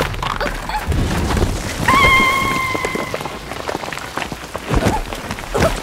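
Heavy rain falling, with many separate drops spattering close by and a low rumble underneath. About two seconds in, a single high held tone sounds for just over a second.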